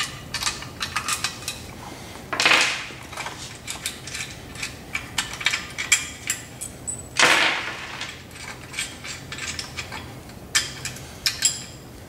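Metal parts clinking and rattling as a caster wheel and its bolts and nuts are taken off a steel hydraulic cart, with two longer scraping noises about two and a half and seven seconds in.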